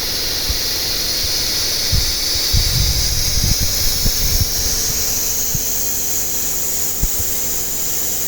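CNC plasma cutter torch cutting: a loud, steady hiss whose high band slowly rises in pitch, with irregular low crackles and pops for a couple of seconds in the middle.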